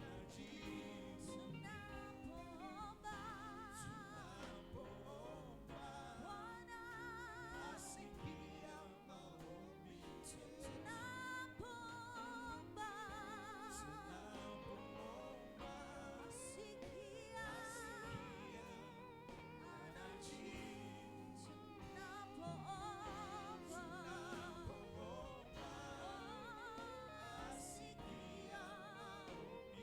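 Church worship song: a singer holding long notes with a wide vibrato over steady instrumental backing.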